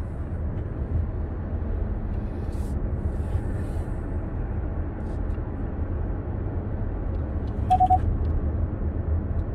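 Steady road and tyre rumble heard inside the cabin of a Hyundai Kona Electric on the move, with no engine sound. A short double beep near the end.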